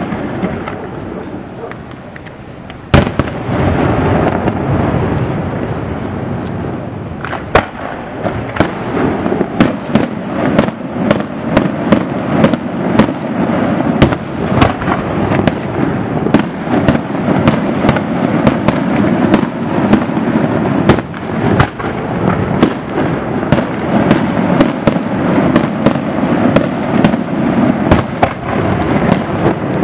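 Aerial fireworks display: a single sharp shell burst about three seconds in, then from about seven seconds on a dense run of sharp bangs, several a second, over a continuous rumble of bursting shells.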